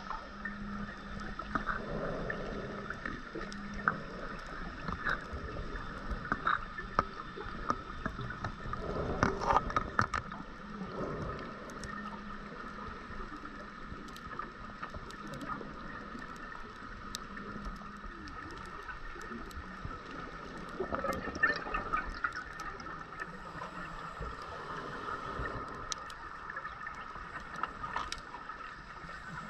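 Underwater sound picked up by a dive camera: a steady hiss and hum with scattered sharp clicks, and gurgling bursts of a scuba diver's exhaled bubbles a few times, loudest about nine to ten seconds in.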